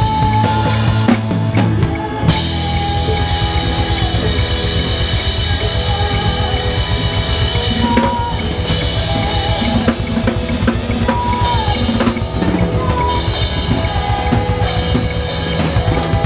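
Live worship band playing, with the drum kit close and loudest: fast, steady bass drum, snare and cymbal strokes under sustained guitar, bass and keyboard notes and singers' held notes.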